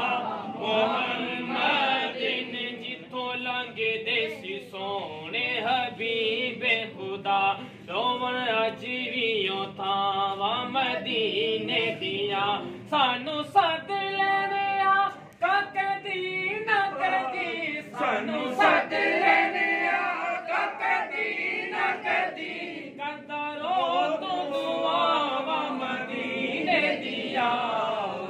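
A group of men singing or chanting devotional verses together, unaccompanied, in a continuous stream of voices.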